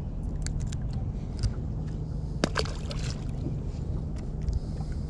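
Water lapping and sloshing against a small fishing boat's hull over a steady low hum, with a few short sharp clicks and knocks, the loudest about two and a half seconds in.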